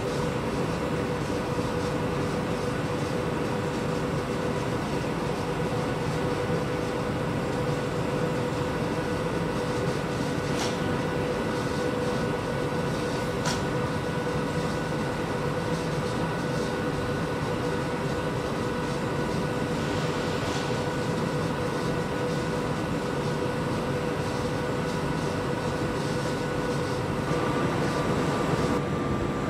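Train running steadily: a continuous rumble with a constant whine over it, and a couple of faint clicks partway through.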